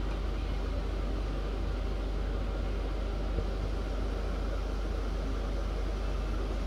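Steady room noise: a constant low hum with a faint hiss and no distinct events.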